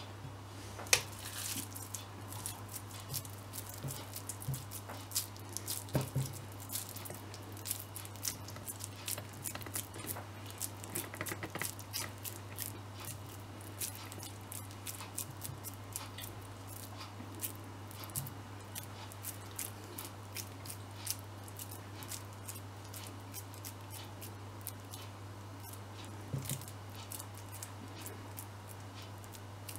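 Hands squeezing and pressing raw chicken mince around a flat knife blade: sticky squelches and irregular small clicks and taps, over a steady low hum.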